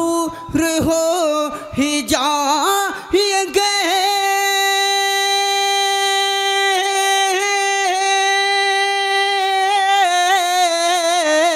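A naat reciter's solo voice sings a wordless ornamented run, then holds one long high note for about six seconds. Small turns and vibrato return toward the end.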